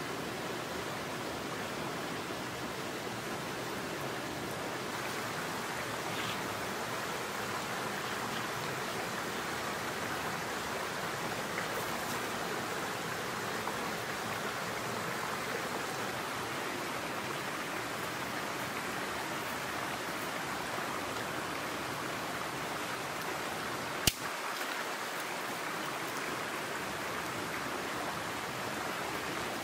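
Mountain stream rushing over rocks and small cascades: a steady, even rush of water. A single sharp click sounds once, late on.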